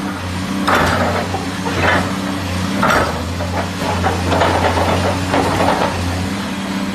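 Diesel engine of a Cat 336 hydraulic crawler excavator running steadily, with repeated bursts of rattling, hissing noise over it roughly once a second until about six seconds in.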